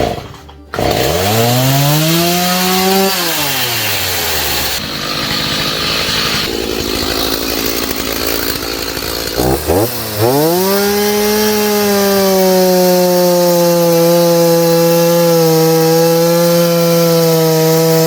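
Gasoline chainsaw revving up and cutting wood. While it is in the cut for several seconds it sounds rough and noisy. Near the end it revs up again and holds a steady high-pitched run.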